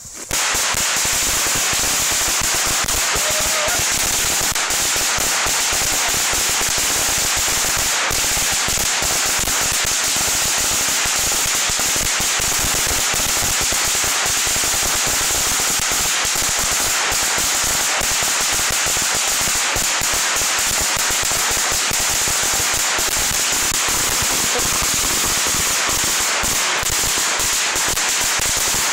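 A long string of about a thousand firecrackers going off, a rapid, unbroken crackle of small bangs packed too close together to count.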